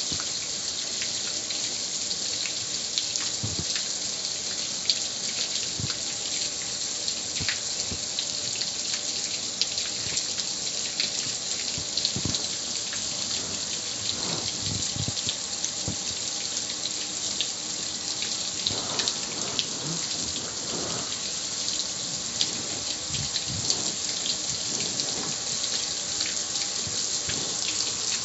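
Garden hose spray nozzle spraying a steady stream of water onto a gas grill's metal lid and control panel, with water splattering off the metal and dripping.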